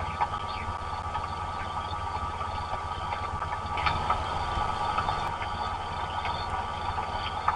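Heavy rain: a steady hiss with a low rumble underneath and scattered sharp ticks of drops striking.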